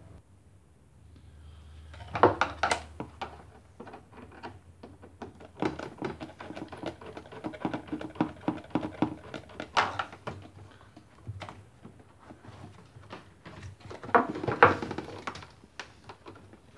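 Hands and a screwdriver working a rubber hose back onto its connector on a washing machine's plastic drum housing: irregular clicks, taps and rubbing of plastic and rubber, with louder knocks about two seconds in and again near the end.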